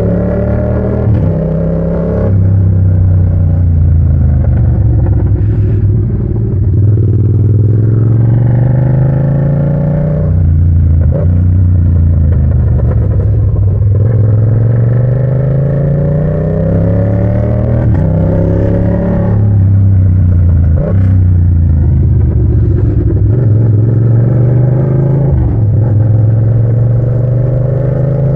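Yamaha MT-07's 689 cc parallel-twin engine, running through a short straight pipe, accelerating hard. Its pitch climbs, breaks off sharply and climbs again several times as it shifts up through the gears, with brief cracks at some of the breaks.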